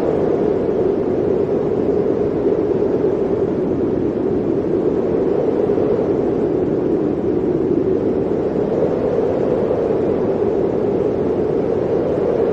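Blizzard wind blowing steadily as a dense rushing noise, its pitch sinking slightly mid-way and rising again near the end.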